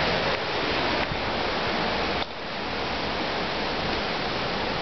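Hurricane Irene's storm wind, a steady rushing noise that eases slightly about two seconds in.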